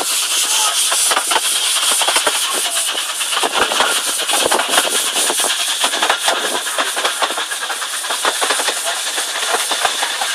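A miniature railway train running, heard from aboard a carriage: the wheels click and rattle irregularly on the track over a steady hiss.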